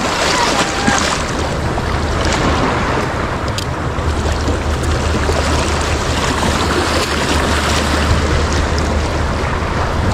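Sea water washing in the shallows, with steady wind buffeting the microphone.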